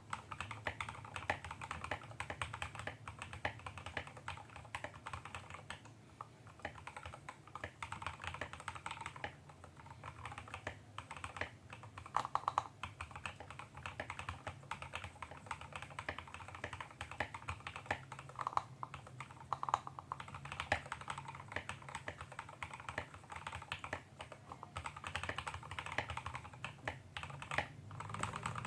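Continuous fast typing on a GK68X mechanical keyboard with lubed JWK Yellow linear switches, a brass plate, a wooden case and XDA keycaps: a dense, irregular run of key clacks, with a steady low hum underneath.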